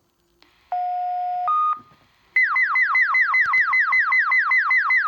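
Fire department radio dispatch alert tones. A steady low tone lasts under a second, then a short higher tone. A moment later a fast falling whoop tone starts, repeating about five times a second, the alert that comes before a general alarm call.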